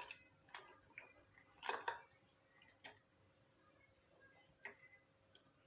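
An insect trilling steadily on one high, finely pulsing pitch. A few light knocks or clinks fall over it, the loudest a little under two seconds in.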